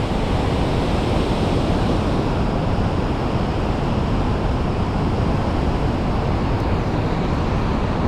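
Steady rushing of a waterfall and whitewater river pouring through a narrow rock gorge.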